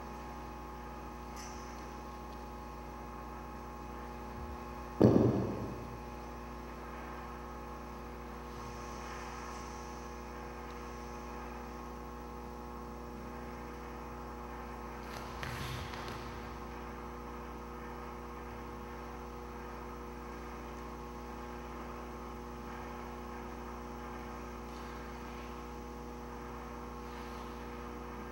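Steady electrical mains hum throughout. About five seconds in, a loud, short, low sound cuts in and dies away over about a second. A fainter, brighter burst follows around fifteen seconds.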